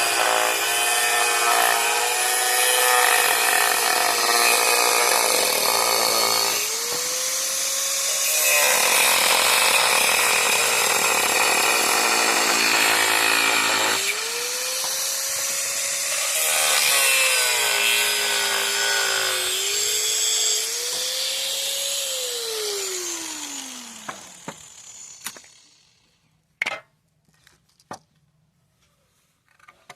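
Electric power tool cutting through a bamboo pole. The motor's pitch sags under load and rises again as the cut frees up. Near the end it is switched off and winds down, followed by a few light knocks.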